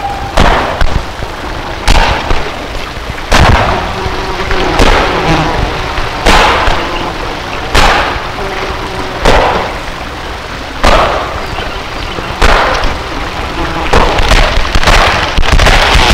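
Experimental noise music: harsh noisy hits land about every second and a half, each fading out into a grainy wash, with the hits coming faster near the end.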